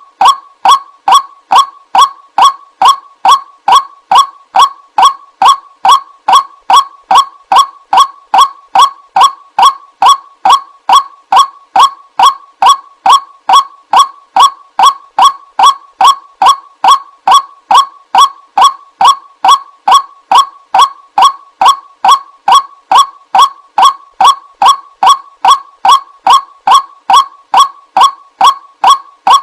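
White-breasted waterhen call, a short honking 'ruak' note repeated very evenly about two and a half times a second. It is a looped recording played as a lure for the bird.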